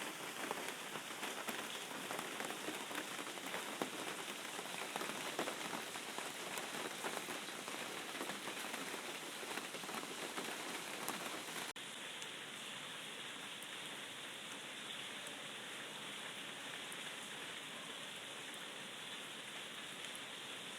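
Steady rain falling, with many distinct drops pattering in an even hiss. About halfway through, the sound cuts abruptly to a smoother, slightly quieter rain hiss with fewer separate drops.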